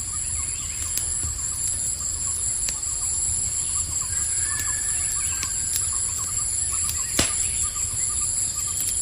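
Forest nature ambience: steady insect chirring with faint bird calls over it, and a single sharp click about seven seconds in.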